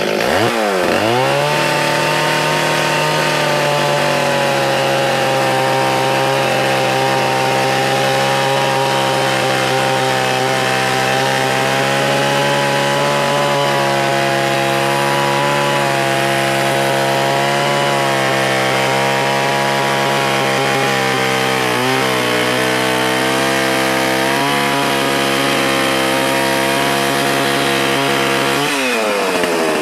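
Stihl 044 two-stroke chainsaw cutting through a log under load. Its note dips and recovers at the start, holds steady through the cut with a brief dip about 22 seconds in, then climbs sharply near the end.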